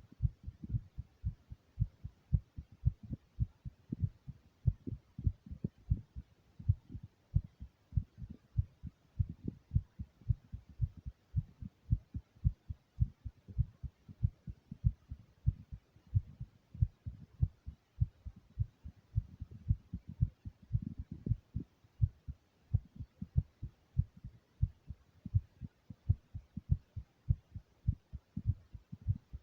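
A human heartbeat recorded close up: a steady, continuous rhythm of paired low thumps (lub-dub). The uploader says it shows how excited and nervous they were.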